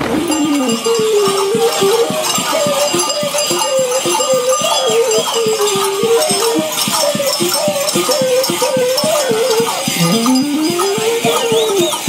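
Rattles and bells on a dancing troupe of folk mummers jangling in a fast, even shake over a wavering melody line. Two short high whistled glides come through, one about four seconds in and one near the end.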